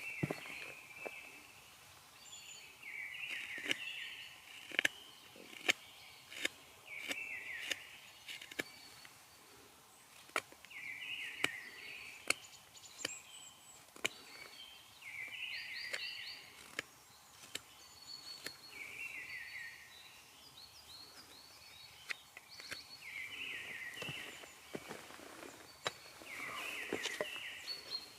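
A songbird singing the same short phrase of quick falling notes over and over, every few seconds, with scattered light clicks and knocks in between.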